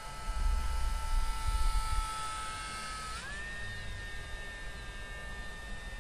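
Electric motor and propeller of a small RC model plane giving a steady whine, which glides up to a higher pitch about halfway through and holds there. A low rumble sits under it in the first couple of seconds.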